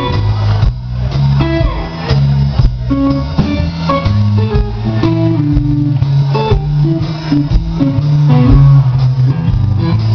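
A live rock band plays an instrumental passage, loud and continuous: electric guitar riffing over bass guitar and a driving drum beat.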